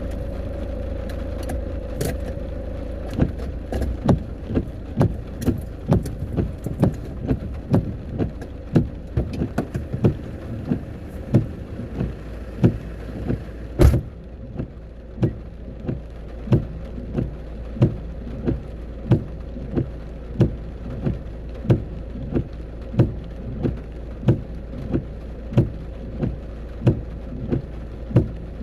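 Storm wind rumbling on the microphone, with something loose knocking and rattling again and again: irregular at first, then a steady beat of about one and a half knocks a second after one loud bang about halfway.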